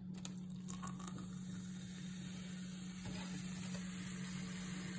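Vinegar poured onto bicarbonate of soda in a plastic cup, with a few light clicks in the first second, then the mixture fizzing with a steady hiss that grows a little as the foam rises. A steady low hum runs underneath.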